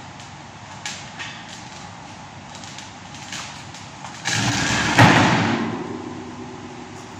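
A large round steel-wire grill grate rattles as it is tipped down, then lands flat on a workbench with a loud metallic clash about five seconds in, its rim and wires ringing and dying away over about a second. A few light clicks of the wires come before it.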